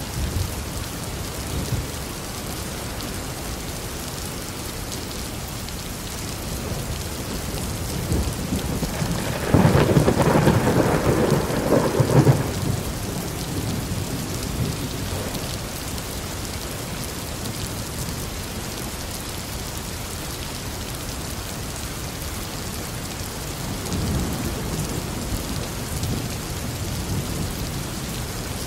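Thunderstorm: steady rain with rolling thunder. A rumble builds about a third of the way in, is loudest for two or three seconds, then dies away, and a fainter rumble follows near the end.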